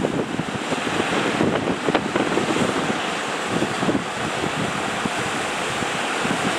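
Ocean surf rushing, with wind buffeting the microphone in irregular crackling gusts.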